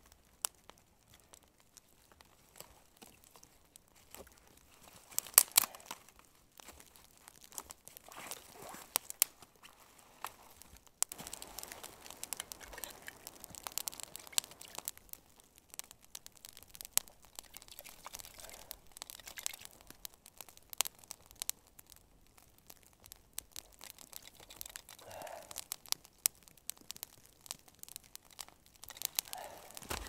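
Newly lit twig fire crackling with frequent sharp pops, mixed with the rustle and snap of dry sticks being fed in by hand. Near the end, boots crunch in snow.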